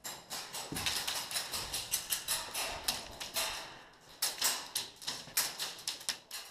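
Airsoft guns firing: a dense, irregular run of sharp clicks and cracks for about three and a half seconds, then single shots a few to the second.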